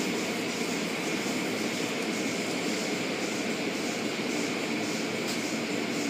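Automatic car wash heard from inside a car: a steady rush of water spray on the glass mixed with the noise of the spinning wash brushes and machinery.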